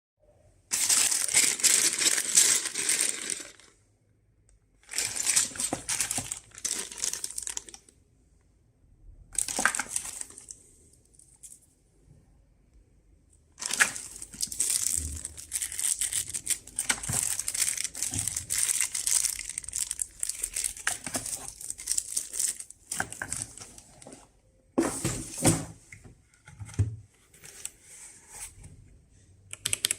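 Packaging being handled: plastic and paper crinkling and rustling with knocks, in several bursts of a few seconds each separated by short pauses.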